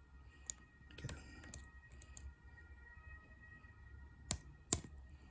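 Small clicks and scrapes of a lock pick working the pins inside an EVVA DPI euro cylinder while it is held in a false set, with two sharper clicks close together near the end.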